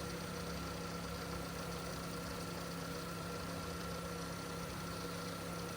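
1999 Nissan Sentra's engine idling steadily, a constant hum with a few held tones and no change in speed.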